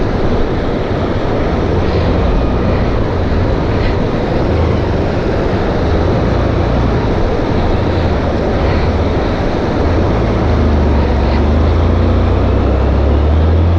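Motorcycle engine running under a loud, steady rushing noise. The engine's low drone grows louder about ten seconds in.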